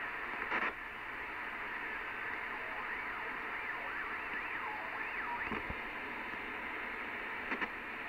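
Midland 79-893 CB radio receiving on channel 38 lower sideband: a steady hiss with a faint whine that wavers up and down in pitch. Two short crackles break in, about half a second in and near the end.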